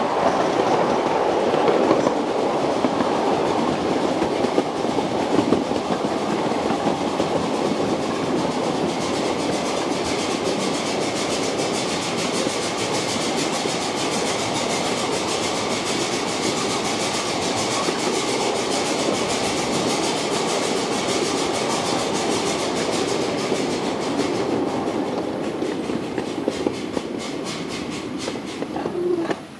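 Miniature live-steam ride-on train running along the track, heard from aboard one of its cars: a steady rolling noise of wheels on rail. A fast, regular clicking grows plainer near the end, then the sound cuts off abruptly.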